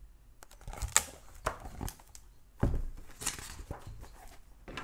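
Handling noise close to the microphone: irregular rustles, clicks and knocks of objects being moved about on a desk. The sharpest click comes about a second in and a dull thump follows about two and a half seconds in.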